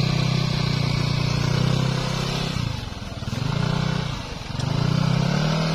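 Automatic motor scooter's engine revving in three surges, easing off between them, as it is pushed out of deep mud: the rear wheel is bogged down and the engine is straining under load.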